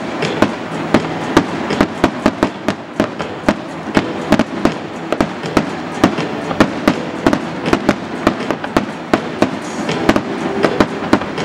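Fireworks display: an irregular series of sharp bangs and crackles, a few every second, over a steady rumbling haze.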